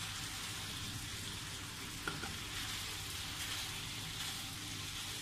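Broccoli and bacon sizzling steadily in oil in a frying pan as they are stirred, with a faint tap about two seconds in.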